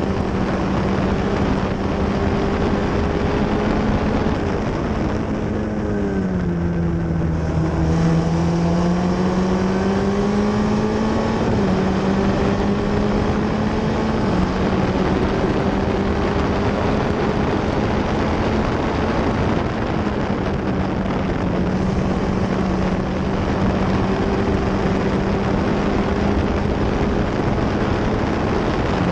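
Onboard sound of an F1600 formula car's four-cylinder engine running hard at high revs. About six seconds in, the engine note drops as the driver lifts for a corner, then climbs back steadily. A few seconds later it steps down slightly twice, as it shifts up.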